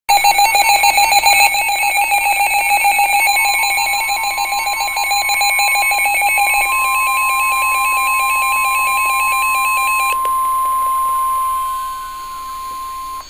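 NOAA Weather Radio alert: a rapidly pulsing electronic alarm of several tones for about ten seconds, with the steady 1050 Hz warning alarm tone coming in a few seconds in. The warning tone then continues alone and cuts off near the end, signalling that an urgent weather warning follows.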